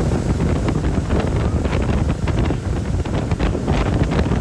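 Wind buffeting the microphone in a steady low rumble, with the rush and splash of water beneath it.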